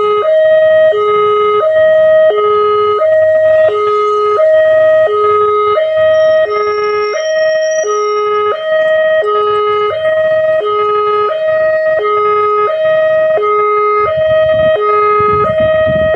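Railway level-crossing warning alarm sounding: an electronic two-tone siren alternating steadily between a high and a low note, the signal that a train is approaching. A low rumble comes in near the end.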